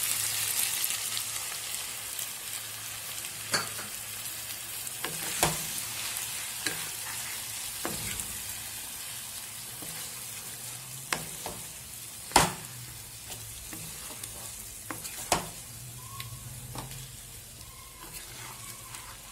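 Cauliflower and potato frying with spice paste in oil in a kadai: a steady sizzle that slowly eases off, while a wooden spatula stirs and knocks sharply against the pan about six times, loudest about twelve seconds in.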